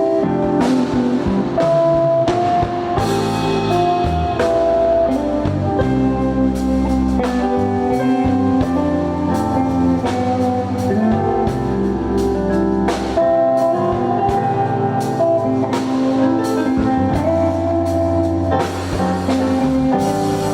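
Instrumental gospel music: guitar and drum kit playing under long held notes, with no singing.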